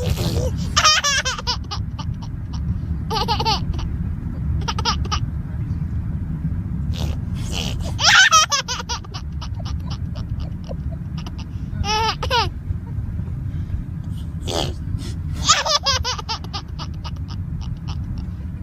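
Baby boy giggling in repeated short bursts of high-pitched, falling squeals, with gaps of a couple of seconds between them, over a steady low background hum.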